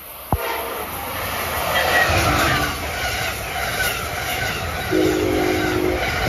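Amtrak passenger train of Amfleet coaches passing close by at speed: a rising rush of wheels on rail and air that lasts to the end. A sharp knock sounds just after the start, and a brief horn chord about five seconds in.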